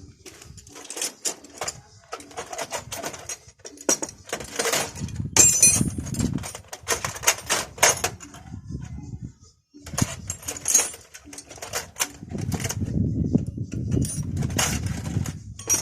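Irregular metallic clinks, taps and clattering, like hand tools and small metal parts being handled, with a brief ringing clink about five seconds in.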